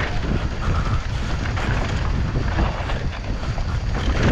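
Wind buffeting the microphone of a mountain bike rider on a fast downhill trail descent, with scattered knocks and rattles from the bike over rough ground.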